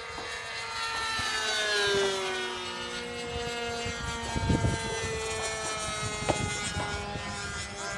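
Engines of two radio-controlled model sport planes buzzing at high power in flight; one passes close, growing loudest about two seconds in and then dropping in pitch as it moves away.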